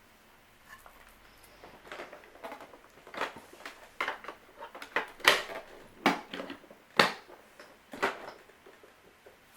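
A series of short knocks and clicks from something being handled, about one a second, loudest in the middle and fading out near the end.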